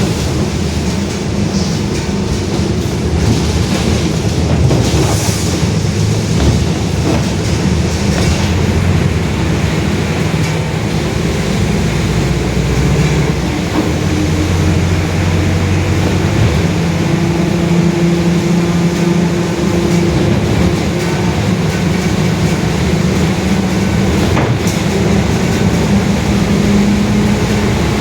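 Mercedes-Benz OF-1721 bus under way, its rear differential growling very loud over the drivetrain noise. Whining tones drift up and down in pitch as the speed changes.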